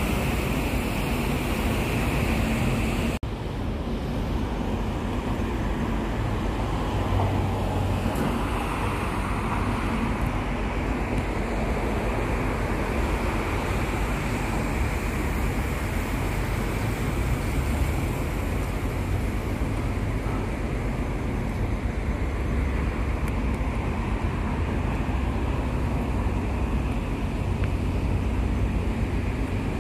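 Steady city road traffic noise from a busy street below: a continuous rumble of passing cars. The hiss drops abruptly about three seconds in.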